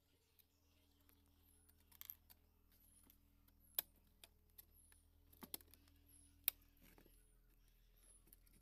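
Quiet room with a handful of sharp, isolated clicks and taps, the loudest about four and six and a half seconds in. A faint, short, high, falling chirp repeats every second or so.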